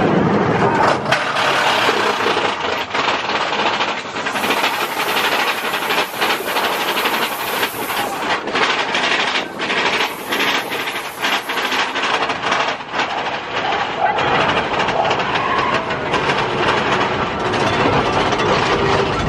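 Mine-train roller coaster cars rattling and clattering along the track at speed, with frequent sharp clacks over a steady rush of wind across the microphone.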